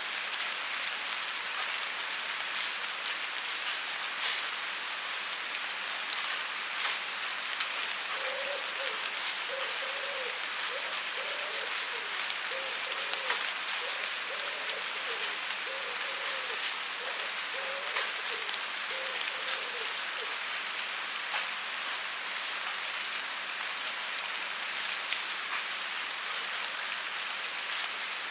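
Steady rain falling on a surface, a dense even hiss with single drops ticking through it.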